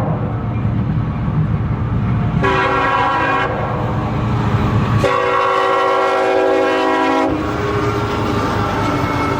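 Train horn sounding two chord blasts over the low rumble of the moving train: a short one about two and a half seconds in and a longer one of about two seconds starting about five seconds in, followed by a fainter held tone.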